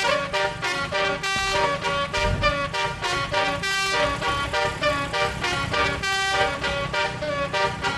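Bus 'telolet' musical air horn of the Basuri type playing a melody of short notes in quick succession, several pitches sounding together.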